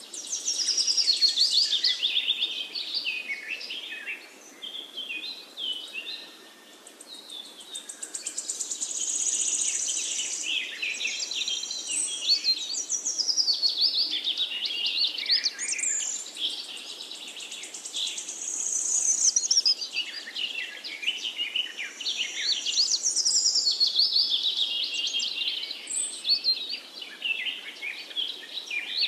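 A songbird singing long, varied phrases of rapid trills and quick whistled glides, high-pitched, each phrase several seconds long with short pauses between them.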